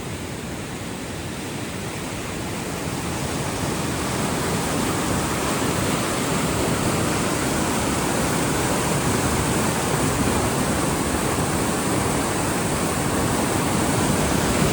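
Rushing whitewater of a river rapid, a steady hiss of moving water that grows louder over the first few seconds and then holds.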